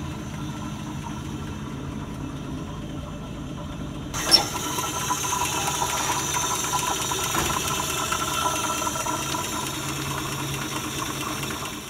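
The engine of a 1932 Willys-Knight 66D running steadily at idle, with a sharp click about four seconds in.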